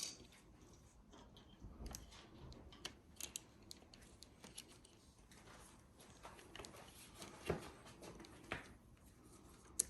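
Faint, scattered clicks and light taps of small bike parts being handled while a brake lever assembly is fitted onto the handlebar, with a sharper click near the end.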